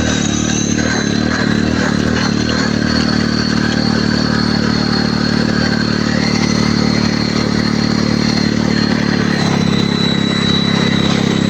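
Vehicle engine running steadily on the move, with a steady high-pitched whistle over it.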